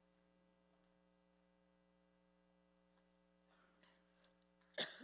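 Near silence with a steady electrical hum from the sound system. Near the end comes a single short cough from a woman whose throat is dry.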